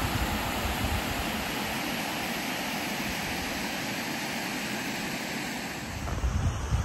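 Steady rushing of water, with wind buffeting the microphone at the start and again from about six seconds in.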